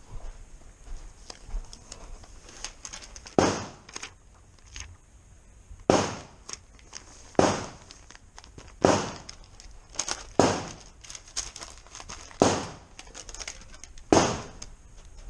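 Zastava CZ 99 bolt-action .22 LR rifle firing seven sharp shots, one every one and a half to two seconds, with fainter clicks between them.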